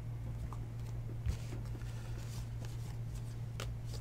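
A hand-held stack of 2019 Donruss Elite football trading cards being flipped through, card by card, with faint rustles and light flicks of card on card over a steady low hum.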